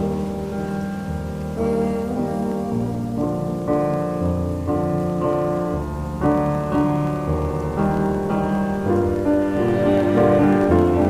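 Slowed-down piano music, sustained chords changing every second or so, with a rain-and-storm ambience layered underneath.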